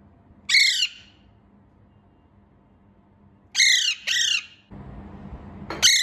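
Green parakeet squawking: short, harsh, loud calls, one about half a second in, a quick pair about three and a half seconds in, and one more at the very end. About a second of rustling noise comes just before the last squawk.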